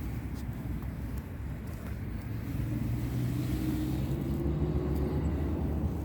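Low engine rumble of a motor vehicle, growing a little louder about halfway through as its pitch slowly rises.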